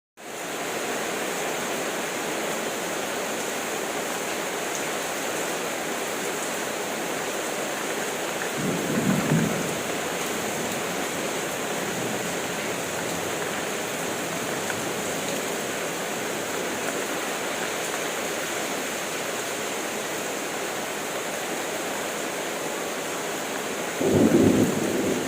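Heavy rain falling steadily, fading in at the start, with two low rumbles of thunder: a short one about a third of the way in and another starting near the end.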